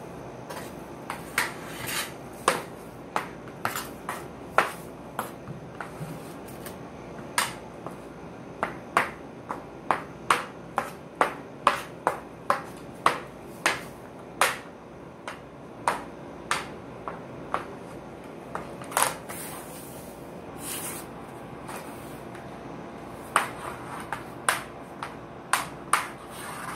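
Sharp, irregular clicks of a hockey stick blade tapping a small hard ball on a hard floor during stickhandling practice, about one to two a second. The clicks thin out for a few seconds about two-thirds of the way through, where there are a couple of short scraping rushes.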